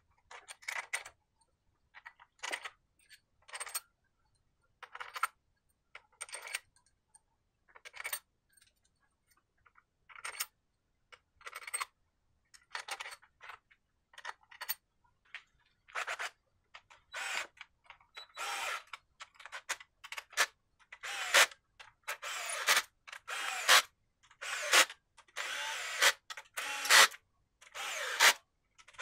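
Metal hand tools working on a car engine, most likely a ratchet wrench turning bolts: short bursts of metallic clicking with pauses between them. The strokes come faster and louder in the second half.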